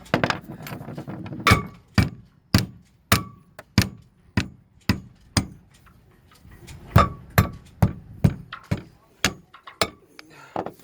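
Repeated hammer blows, about two a second, some with a short metallic ring, with a brief pause in the middle: a shifted fitting at the mast is being banged to knock it back into place.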